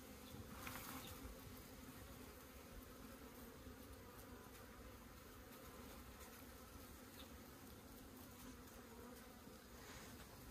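Faint, steady hum of honeybees buzzing around an opened hive, with a brief handling noise about a second in.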